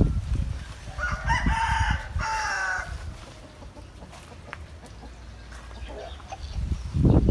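A rooster crowing once, a call of about two seconds with a short break in the middle. Low rumbling noise at the start and again near the end.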